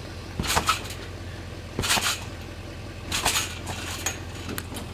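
Backyard trampoline bounces: the mat and springs give a short rustling creak with each rebound, about a second and a half apart, three times and then once more, more softly, as the bouncing dies down.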